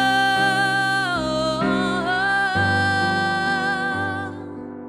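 A woman singing one long wordless note with vibrato over sustained accompaniment chords. The note dips in pitch about a second in and climbs back, and it fades out near the end, leaving the chords.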